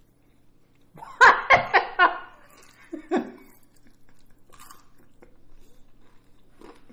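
A person laughing: a quick burst of about five 'ha's about a second in, then a shorter laugh near three seconds. Faint chewing lies underneath.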